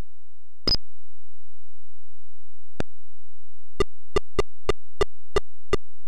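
Short synthesized click sounds from a DOS demo's setup menu as options are clicked: one sharper, hissy click about a second in, a single blip a couple of seconds later, then seven quick pitched blips at about three a second.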